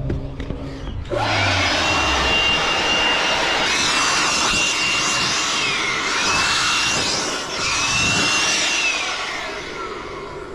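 Electric blower clearing sawdust off a freshly cut timber slab. Its motor starts about a second in with a loud rush of air and a high whine that drops and picks up again a few times as the trigger is eased and squeezed, then winds down near the end.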